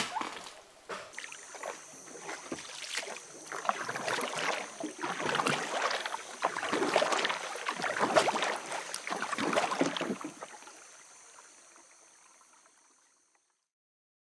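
Wooden canoe being paddled through calm water: irregular paddle strokes splashing and water lapping against the hull, building through the middle and fading out over the last few seconds. A short sharp knock comes right at the start, and a steady high-pitched whine sits behind the water.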